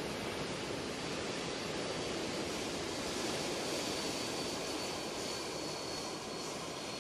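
Lockheed C-5 Galaxy taxiing, its turbofan engines running: a steady rush of jet noise with a thin high whine that rises a few seconds in and fades near the end.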